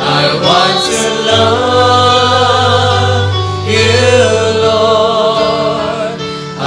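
Praise and worship song: voices singing long held notes with vibrato over band accompaniment, a steady low bass note underneath for several seconds in the middle.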